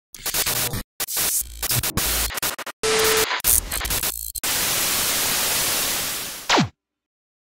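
TV static sound effect: choppy, glitching bursts of hiss broken by short gaps and a brief beep. Then about two seconds of steady static hiss that ends in a quick falling whine and cuts off suddenly.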